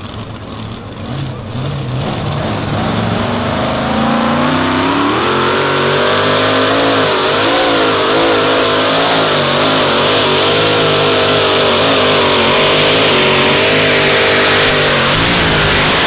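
Mini modified pulling tractor's engine revving up under load as it pulls the sled. The pitch climbs over a few seconds, holds at high revs with a wavering note, then drops off abruptly near the end.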